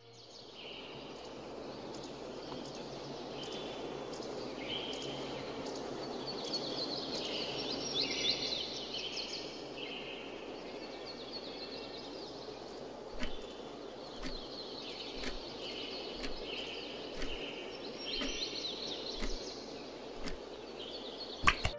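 Outdoor ambience of birds chirping over a steady background hiss, with sharp ticks about once a second joining about halfway through.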